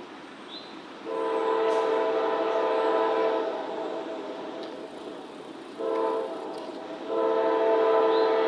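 CSX freight locomotive's multi-chime air horn sounding for a grade crossing, several notes together as one chord: a long blast, a short blast, then another long blast that is still held at the end. Under it is the steady rumble of the approaching train.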